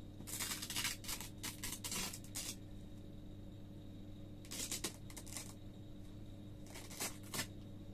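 Fastenings on a fursuit head's detachable neck piece being pulled apart: three spells of short, rasping rips. The first, about two seconds long, starts just after the beginning; shorter ones follow around the middle and near the end.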